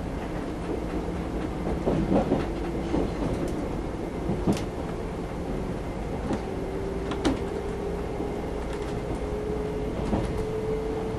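JR 381 series electric express train running, heard inside the passenger car: a steady rumble with a tone that rises slowly in pitch, and a few sharp knocks from the wheels on the track.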